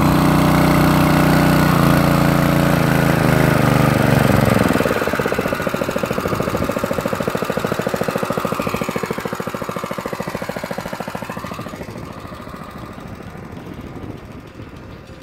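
Small petrol engine of a portable water pump running steadily and loud at close range, growing fainter from about five seconds in and fading further toward the end.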